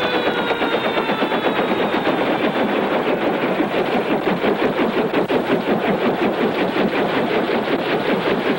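Helicopter rotor chopping in a rapid, even beat, with the engine running, as the helicopter sits on the ground. A whine falls in pitch and fades out over the first few seconds.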